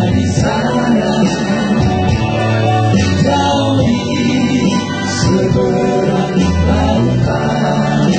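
Men singing together into microphones, backed by an electronic keyboard with a steady bass line.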